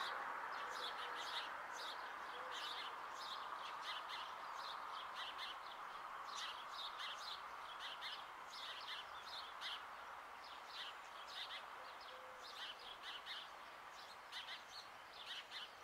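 Small birds chirping faintly, many short high calls scattered irregularly, over a faint steady background hiss.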